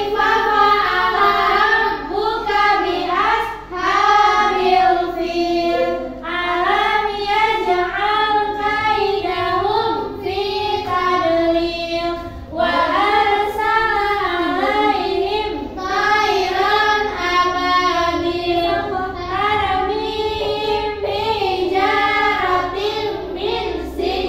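A group of young children singing a song together, with brief breaks between lines.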